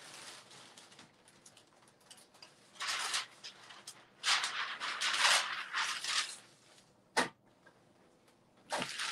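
A sheet of protective paper rustling and crinkling in short bursts as it is handled and laid out over a heat press platen, with a single sharp tap near the end.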